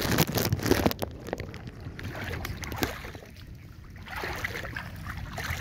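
Water splashing and dripping as a gill net is hauled by hand out of the water into a small boat. There is a loud burst of splashing in the first second, then lighter crackly dripping that picks up again near the end.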